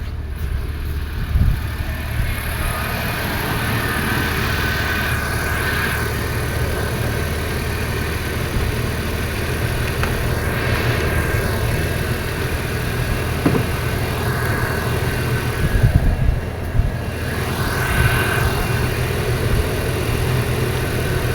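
2002 Toyota Land Cruiser engine idling steadily, just started on a battery that had gone flat. A few short knocks come over it, once near the start and again about two-thirds of the way in.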